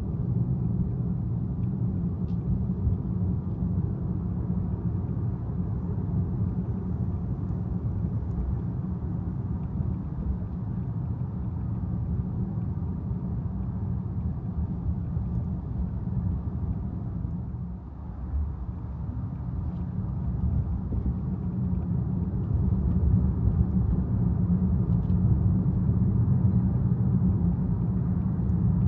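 Car driving on the road: a steady low road and engine rumble. It dips briefly about 18 seconds in, then runs a little louder toward the end.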